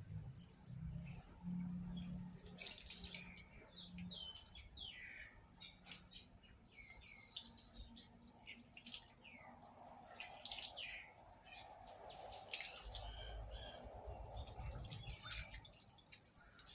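Running water splashing as turmeric paste is rinsed off a dog, with birds chirping in the background.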